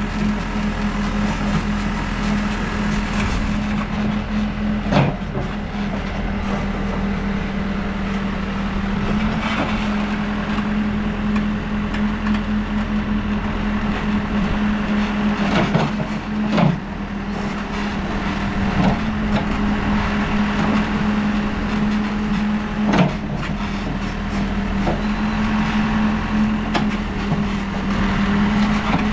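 New Holland backhoe loader's diesel engine running steadily with a constant drone while the machine digs clay from a trench. Several short sharp knocks are scattered through it.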